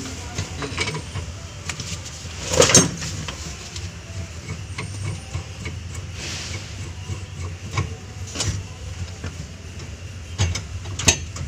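Scattered metallic clicks and knocks of a wrench and parts as a Mitsubishi L300 van's gear shifter is being fitted, with a louder clatter about two and a half seconds in and a few sharper knocks near the end, over a low steady hum.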